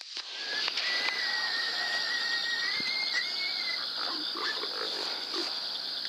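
Night-time field chorus: a steady high-pitched drone, with a thin whistling tone that wavers slightly from about one to four seconds in. A few faint low sounds come near the end.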